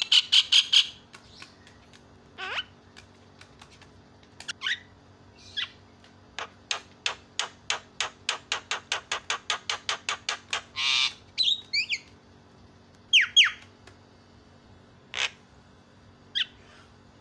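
Javan myna calling in a varied sequence: sweeping whistled notes, then a fast run of clicking notes at about five a second, a harsh buzzy note, and sharp squawks near the end.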